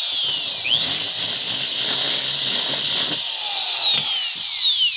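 Handheld electric drill running, its bit boring a hole through the vehicle canopy cover. Its steady high whine dips in pitch briefly about half a second in and slides down near the end.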